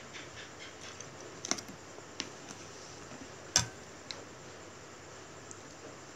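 Wooden chopsticks and tableware clicking against a ceramic plate and bowl: a few sparse light clicks, with one louder knock about three and a half seconds in.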